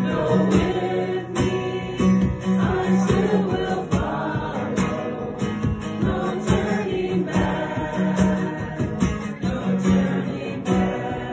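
Acoustic guitar strummed in a steady rhythm while a small group of voices sings a worship song.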